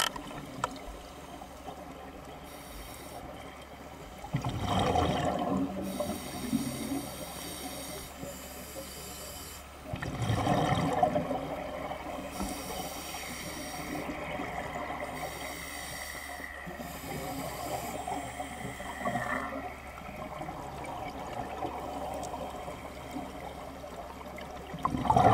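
Scuba diver's regulator underwater, heard through the camera's underwater housing: three bursts of exhaled bubbles, about four and a half, ten and twenty-five seconds in, with a steady hiss between them. In the middle a faint high tone slowly falls in pitch.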